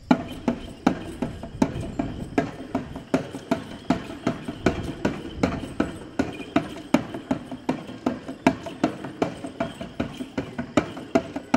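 Jhakri shaman's dhyangro frame drum beaten in a steady dance rhythm: a loud stroke about every three-quarters of a second with lighter strokes between.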